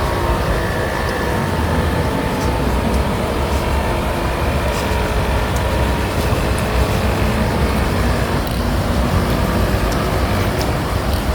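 Radio-controlled boat's motor whining steadily over a heavy low rumble, its pitch shifting a little about eight seconds in.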